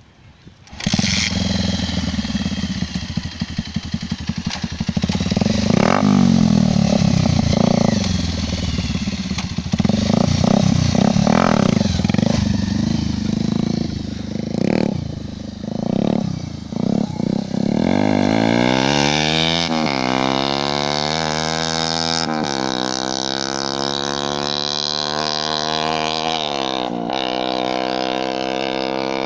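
Bajaj Pulsar 150's single-cylinder four-stroke engine breathing through an aftermarket Akrapovic exhaust: it starts about a second in and is revved in uneven bursts. Later it climbs steadily in pitch as the bike accelerates away, with a drop at each gear change.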